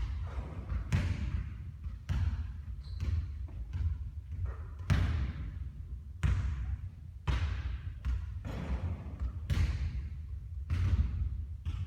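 A basketball hitting the court over and over, about once a second, each impact trailing off, over a steady low rumble.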